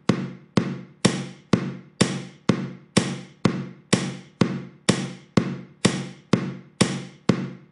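Background music: a steady rhythm of struck, pitched notes about two a second, each fading before the next.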